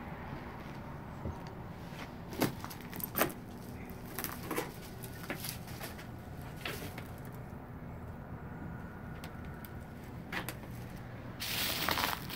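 Footsteps and the odd creak or knock of old wooden floorboards and debris under foot, scattered single knocks, then a longer crunching scuff near the end.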